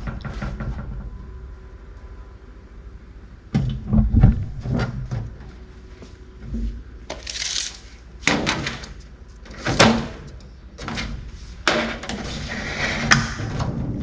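Sheet-metal roofing trim being worked by hand into an end channel: a string of irregular clanks and knocks, with a couple of longer scraping passes of metal.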